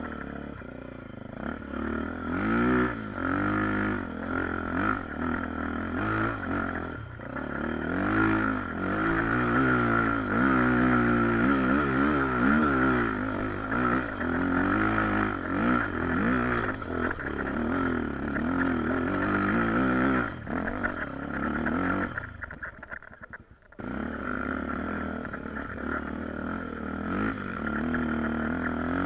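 Honda XR 250 Tornado dirt bike's single-cylinder four-stroke engine, bored out to 280 cc with a ProTork Powercore exhaust, revving up and down under load on an uphill trail. Near the end it falls away sharply for a second or two, then picks back up.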